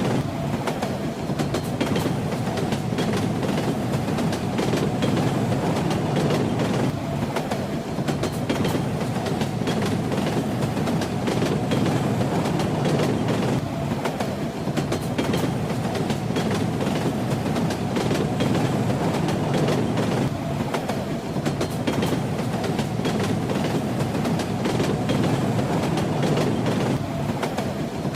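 Train running on rails: a steady low rumble with the clatter of the wheels over the track.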